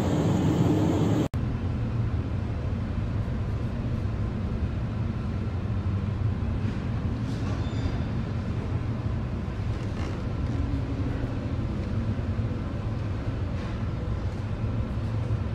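Storm wind and heavy seas heard aboard a container ship: a steady low rumble with rushing noise. About a second in, a louder, hissier stretch of wind noise cuts off abruptly.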